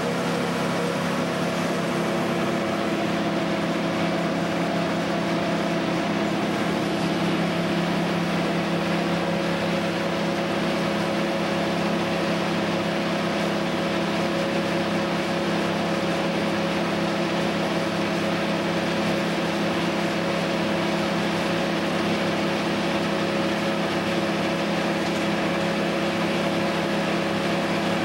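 An engine running steadily at constant speed, with an even, unchanging hum and no load changes.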